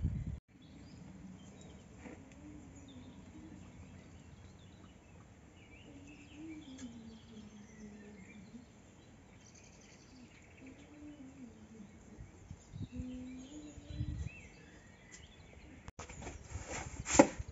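Quiet outdoor ambience with faint bird chirps and a faint low hum that slowly wavers in pitch. Near the end it cuts to louder clattering with one sharp knock.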